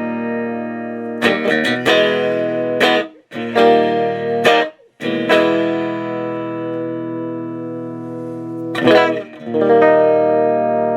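Electric guitar chords strummed and left to ring through a hand-built Fender blackface Vibrolux Reverb clone valve amp on its first channel. New chords come every second or two, with two brief stops a little after three and five seconds in.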